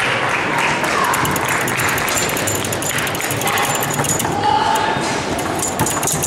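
Tecball foosball table in fast play: the hard ball knocking sharply and repeatedly against the plastic players and table walls, with rods clacking, over voices of onlookers.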